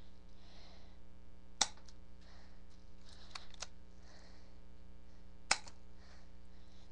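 Two sharp shots from a spring-cocked Stinger P-32 BB pistol, about four seconds apart, with a few fainter clicks between them as the stiff gun is cocked again. A steady mains hum runs underneath.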